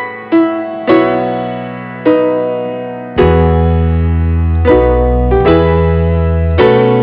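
Keyboard music in a piano sound: notes and chords struck every half second to second and left to fade. A deep held bass comes in about three seconds in, and the music is fuller and louder from there.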